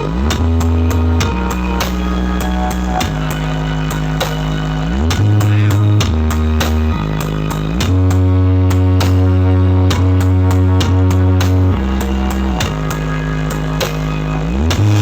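Dance music played loud through a large sound system, with heavy sustained bass notes that slide between pitches and a steady drum beat.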